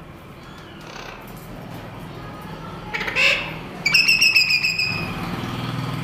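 Alexandrine parakeets calling: a short squawk about three seconds in, then a rapid buzzy chatter at one high pitch lasting about a second. A low engine hum rises under it near the end.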